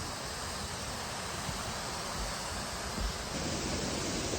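Marymere Falls rushing: a steady hiss of falling water that grows a little louder about three seconds in.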